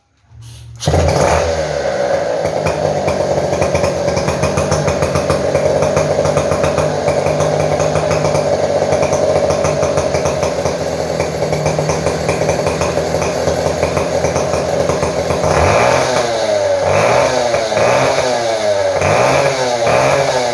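Stihl 070 two-stroke chainsaw engine, fitted with a new piston assembly, comes on about a second in and runs steadily at a fast idle. In the last quarter it is revved up and down over and over, about once a second.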